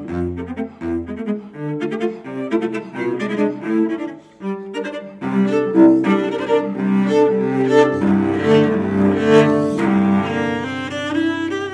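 Solo cello playing a quick run of short notes, growing louder about halfway through.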